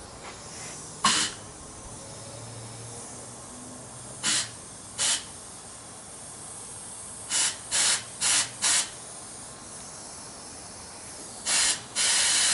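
Short blasts of compressed air from an air nozzle hissing, about eight quick bursts with a longer hiss near the end: air-checking an automatic transmission's clutch apply passages.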